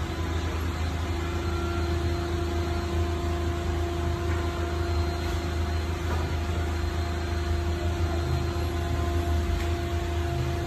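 Steady low mechanical hum of a running motor, with a faint even tone above it and a background hiss.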